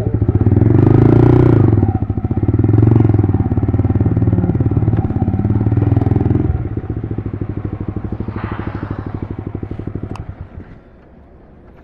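Yamaha R15 V3's single-cylinder engine running through an Akrapovič replica exhaust, louder at first, dropping to a quieter note about six and a half seconds in, and dying away about ten and a half seconds in.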